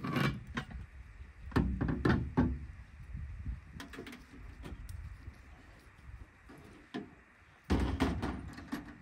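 Camping gear being shifted and pulled out of a pickup truck bed: clusters of thunks and knocks as items are moved and a hard black case is slid out over the ribbed plastic bed liner, loudest near the start, around two seconds in, and near the end.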